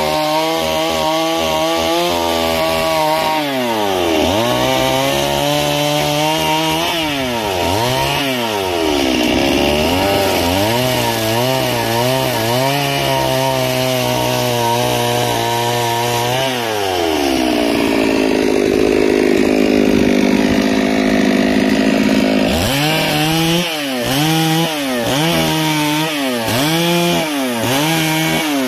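Two-stroke Stihl chainsaw carving into a wooden block, the engine revving up and dropping back as the chain bites and eases off. It holds at high revs for several seconds past the middle, then rises and falls about once a second near the end.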